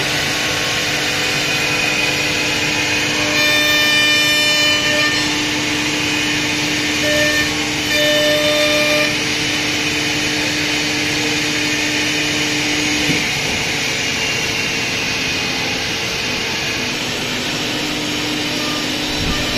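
Wood door CNC machining line running, with a steady mix of motor hum, high whine and dust-extraction rush. It grows louder and shriller twice, about four and eight seconds in.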